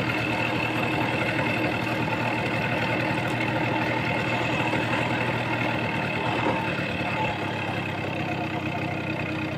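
A motor vehicle's engine running at a steady speed: an even hum with a few held tones.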